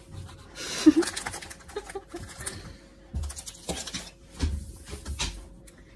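Plastic candy-kit packets crinkling and rustling as they are handled, with several light knocks on a wooden tabletop.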